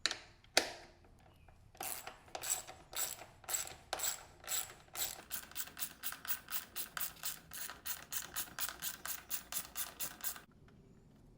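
Socket ratchet clicking as it backs out a bolt holding the dirt bike's exhaust. The clicks come slowly at first, then speed up to about four a second, and stop shortly before the end.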